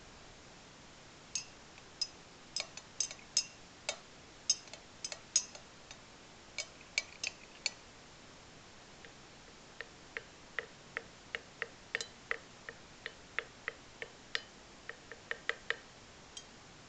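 Glass stirring rod clinking against the inside of a glass laboratory beaker of water as it is stirred: a run of irregular sharp, ringing clinks, then a steadier series of ticks about three a second in the second half.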